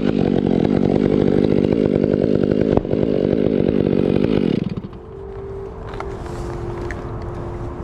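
Two-stroke chainsaw running at high revs, then dropping back to idle about four and a half seconds in. Behind it a steady held tone comes in from the tsunami warning test chimes.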